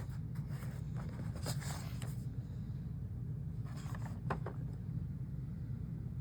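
Light scraping and clicking of a plastic action figure being handled, in two short spells, over a steady low hum.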